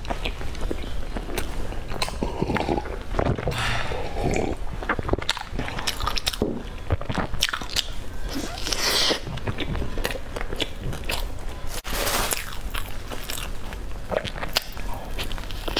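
Close-miked biting and chewing of a layered snack, a crisp toasted crust over sticky black rice and melted cheese: repeated crackly crunches, with a few louder bites.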